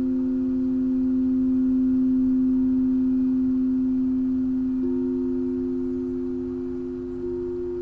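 Two singing bowls ringing together in pure, steady tones, a lower one held throughout and a higher one sounded again about five seconds in and once more near the end.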